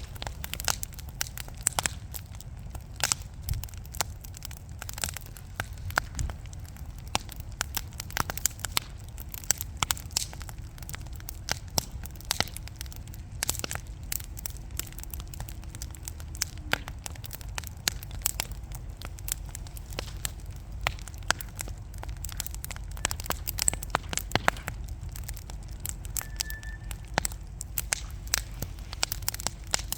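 Wood burning in a fireplace, crackling with frequent irregular sharp pops and snaps over a low steady rumble.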